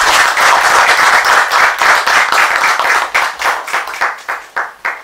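Audience applauding with many hands clapping, dense at first, then thinning into scattered separate claps that stop near the end.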